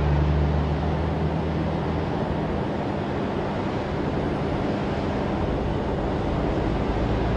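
Heavy-haul semi truck's diesel engine droning as it pulls a long, heavy load past, fading away over about five seconds, under steady wind noise on the microphone.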